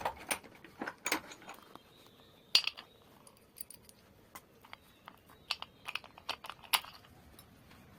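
Irregular sharp metallic clicks and clinks of a bearing puller and ceiling-fan parts being handled, as the puller is set up to pull a ceiling-fan bearing. The loudest knocks come about two and a half seconds in and again near the end.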